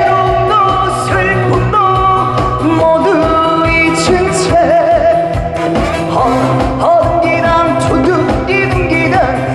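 Trot song performed live: a man singing a held, wavering melody over a loud band backing with a steady beat.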